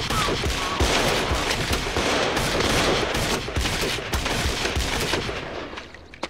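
Pistol fired in a rapid string of shots, one crack close on another, going on for several seconds and then dying away near the end.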